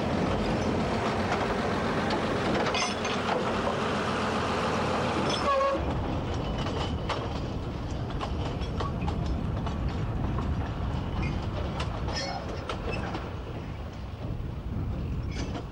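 Narrow-gauge diesel locomotive running with its train of peat wagons, a steady rumble with clicks and clanks of the wheels and couplings. The sound changes abruptly about six seconds in.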